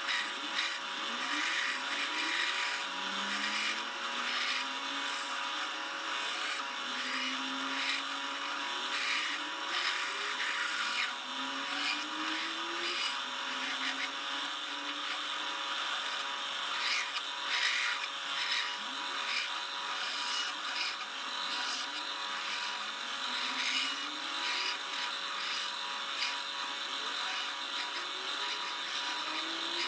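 Electric woodworking saw running and cutting wood: a steady motor hum under a continuous rasping, crackling cut. Faint low tones glide upward every couple of seconds.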